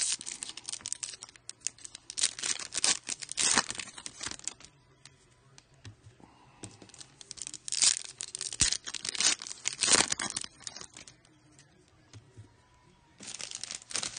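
A foil trading-card pack wrapper being torn open and crinkled, in several bursts with short pauses between them.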